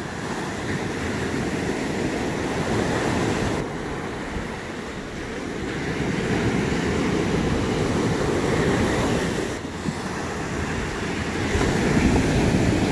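Ocean surf breaking and washing up a sandy beach, a steady rushing wash that grows louder near the end.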